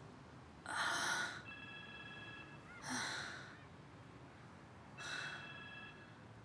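A woman breathing heavily through her mouth, three loud breaths about two seconds apart, as if in pain.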